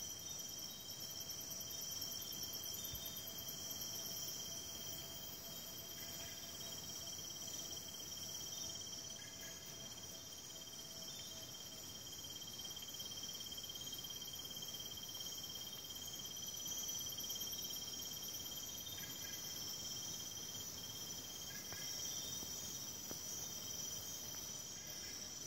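Night insect chorus of crickets and other insects, several trilling steadily at different high pitches, with a few faint short calls now and then.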